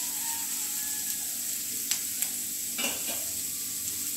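Chopped radish and onion sizzling as they fry in oil in a metal kadhai, stirred with a metal spatula that scrapes and clicks against the pan a few times about two to three seconds in.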